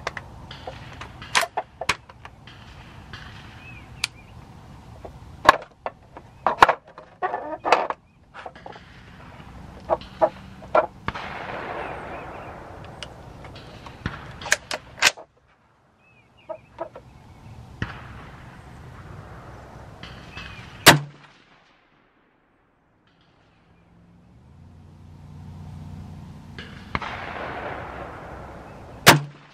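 Rifle shots at a range: a series of sharp cracks spaced irregularly a second or several apart. Three of them, near the middle and end, are much louder than the rest.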